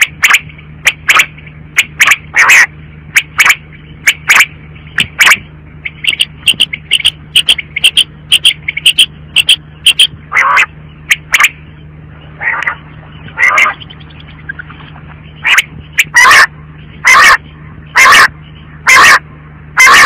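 Female quail calling in a long run of short, sharp calls: about two a second at first, a rapid series of about three a second in the middle, then louder calls about a second apart near the end. A steady low hum runs underneath.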